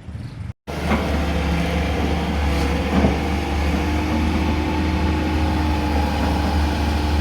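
Excavator diesel engine running steadily with a deep, even hum, starting after a brief silent cut about half a second in.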